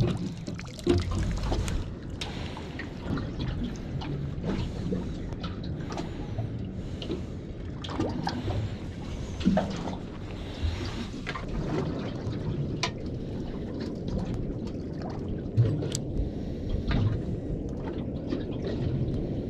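Water lapping and trickling against the hull of a small metal boat drifting on the sea, with scattered short knocks and clicks of gear being handled on board.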